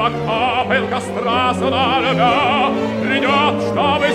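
Opera music: an orchestra playing under a melodic line with strong vibrato.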